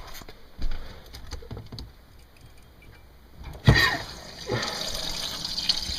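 A water tap is opened: water bursts out suddenly, then runs steadily. It is left running to purge air from water lines that have just been turned on.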